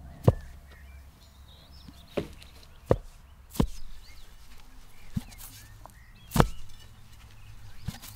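A steel digging bar jabbed into grassy soil again and again: seven irregular thuds, the loudest near the start and about six seconds in.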